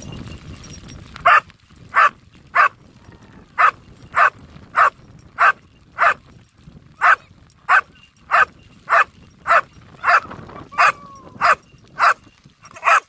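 Search dog barking steadily at a hidden casualty it has found: a long run of short, sharp barks about every half-second, the bark indication a trained search dog gives to call its handler to the find.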